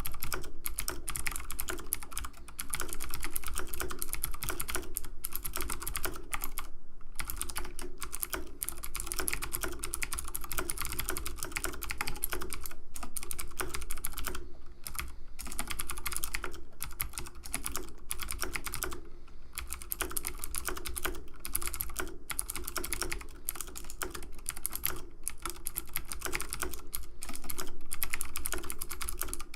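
Computer keyboard keys clicking in fast, continuous typing, with a few brief pauses.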